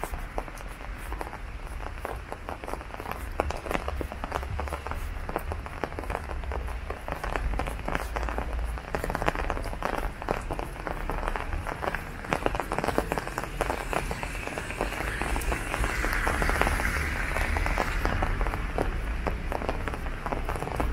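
Steady rain falling on an open umbrella, heard as a dense, even stream of tiny drop ticks, with a louder hiss swelling about two-thirds of the way in.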